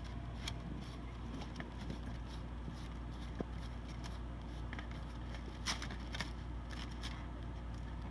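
Faint scraping and light clicks as a new fuel filter is handled in its cardboard box and its drain bottom is screwed on by hand, over a steady low hum.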